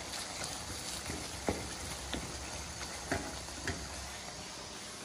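Masala frying with a low sizzle in a pan on a gas burner while a wooden spoon stirs it, knocking against the pan about four times. The masala is nearly ready.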